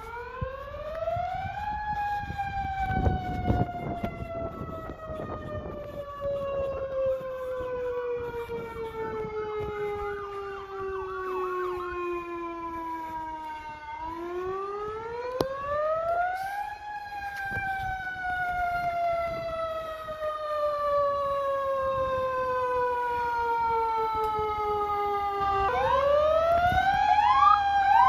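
Fire truck siren wailing: its pitch climbs over about two seconds, then sinks slowly for about twelve seconds before climbing again, about fourteen and about twenty-six seconds in.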